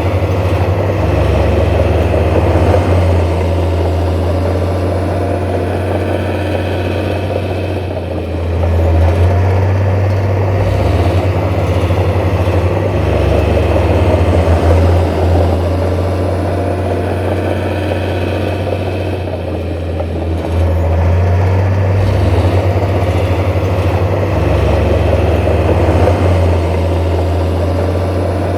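Heavy diesel construction machine engine running at work, its load easing and building again a couple of times.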